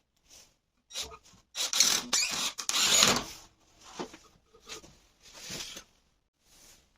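Workshop handling noises of wood and tools: a series of short scrapes and knocks, with a longer, louder scraping stretch about two to three seconds in, then a few fainter ones.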